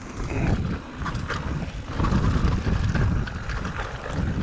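Mountain bike riding down rough singletrack: wind buffeting the microphone in a heavy low rumble, with scattered knocks and rattles from the bike over the trail.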